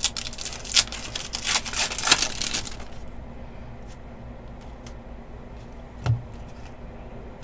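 Panini basketball trading cards and their packaging being handled at a table: a quick run of clicks and rustles for the first few seconds, then a few scattered ticks and a soft thump about six seconds in.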